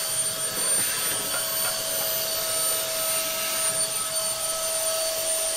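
Vacuum cleaner running steadily: an even motor whine over rushing air.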